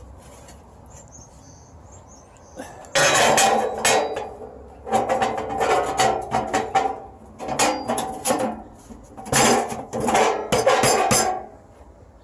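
Stainless-steel sheet-metal stove parts clattering and rattling as they are handled, in four bursts of a second or two each.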